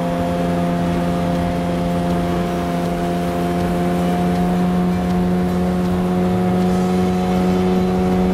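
Boat motor running at a constant speed: a steady, even hum that holds unchanged throughout.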